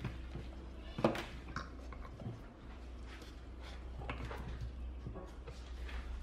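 Small metal-framed speaker driver being handled and pushed into the opening of a wooden speaker cabinet: a series of irregular clicks and knocks of the metal frame against the wood, the loudest about a second in.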